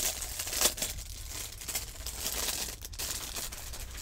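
Thin clear plastic packaging bag crinkling and rustling as it is handled, opened and the plastic sculpting tools are slid out of it. The loudest crackle comes about half a second in.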